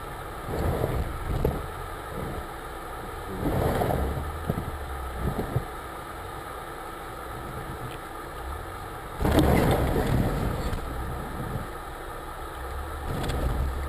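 Car running slowly, heard from inside the cabin: a steady low engine and road rumble, with several louder noisy swells, the loudest about nine seconds in.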